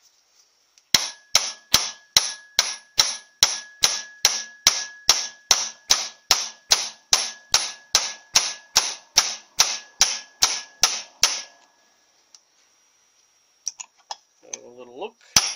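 Hammer tapping steadily on a bush driver, about two and a half strikes a second for some ten seconds, each with a short metallic ring: a new white-metal bush is being driven evenly into a cast iron Powerglide transmission drum. After a pause with a few light knocks, the tapping starts again near the end.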